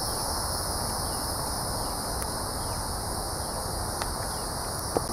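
A steady, high insect chorus over a low rushing noise from the wood fire burning hard in a bucket stove, with a faint crack or two near the end.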